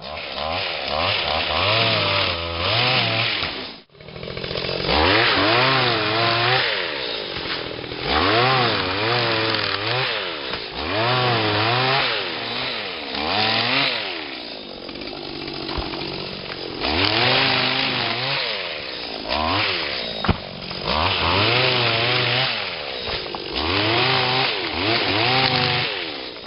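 Small engine of a motorized oil palm harvester running and revving up and dropping back again and again. The sound cuts out briefly about four seconds in, and there is a single sharp knock about twenty seconds in.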